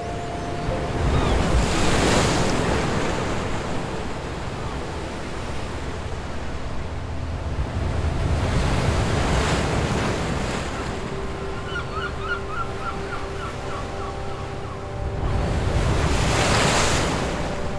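Sea surf washing against a rocky shore in three slow swells about seven seconds apart, with wind in the background.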